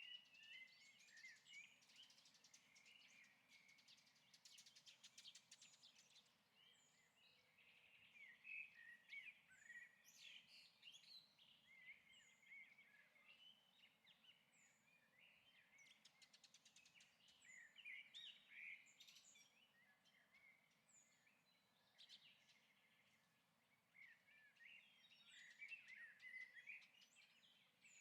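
Faint birdsong from a stock sound-effect recording: many small birds chirping with short, high calls that overlap, and rapid trills now and then.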